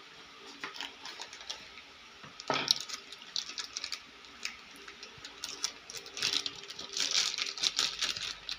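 A small electronics module being unpacked: a sharp scrape of cardboard packaging about two and a half seconds in, then the crinkle and rustle of a thin plastic bag being handled, busiest near the end.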